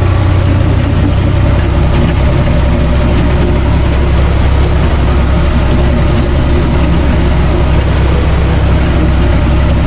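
UTB Universal 445 DT tractor's diesel engine running steadily, heard from the driver's seat in the cab as a loud, deep, even drone.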